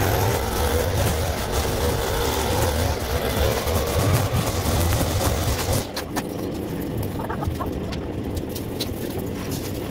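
Stihl FS 220 two-stroke brush cutter running steadily at speed; about six seconds in its sound drops and thins out, with a few sharp clicks after.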